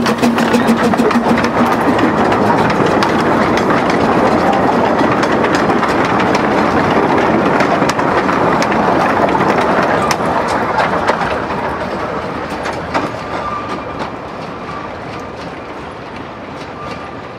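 Quarry Hunslet 0-4-0 tank steam locomotive and its carriages running close past on narrow-gauge track, with the working locomotive and rapid clicking of wheels over the rails. The sound fades steadily from about eleven seconds in as the train runs away.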